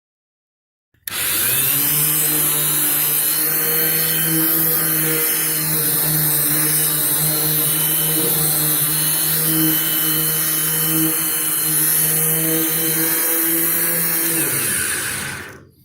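Power sander with 80-grit paper running steadily against the paint of a steel car trunk, a motor hum under a grinding rasp. It starts about a second in and winds down near the end.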